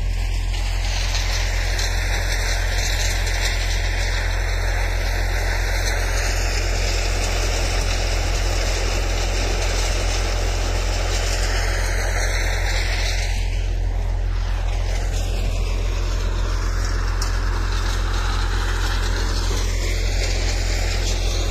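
A chaff cutter and the engine driving it running steadily, a loud constant machine noise with a deep hum underneath.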